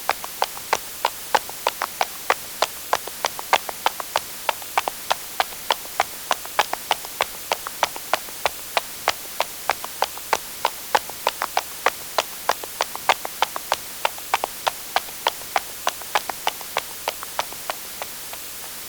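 Quick footsteps on a hard surface: a steady run of sharp clicks, about three to four steps a second, over a constant hiss, stopping shortly before the end.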